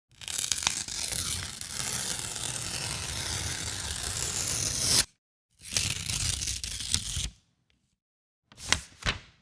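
A series of noisy editing sound effects: a long rough hiss of about five seconds that swells and cuts off sharply, a shorter one of about a second and a half, then two quick bursts near the end.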